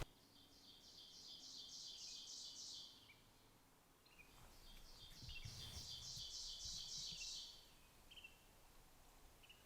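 A songbird singing faintly: two phrases of quickly repeated high notes, about three or four a second, each phrase lasting two to three seconds.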